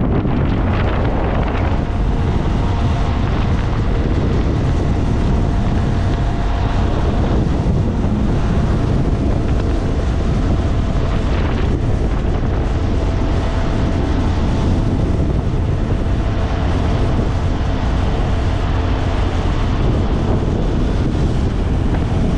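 Steady wind buffeting on the microphone of a moving motorcycle, with the engine running steadily underneath.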